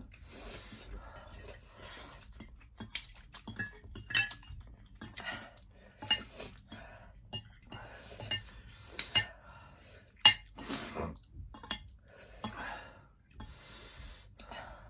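Metal forks clinking and scraping on plates as noodles are eaten, in irregular small clicks, with one sharper clink about ten seconds in.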